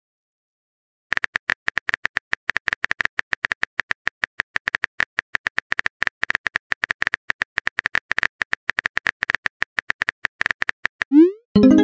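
Simulated phone-keyboard typing clicks, rapid and even, as a text message is typed. They stop just before the end with a short rising whoosh of the message being sent, then a brief tone.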